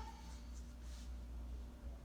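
Quiet room tone with a steady low hum; the last trace of a rubber chicken toy's squeal dies away at the very start.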